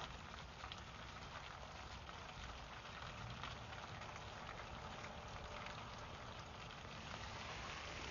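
Hooves of a large herd of elk walking on pavement: a steady, dense clatter of many small clicks.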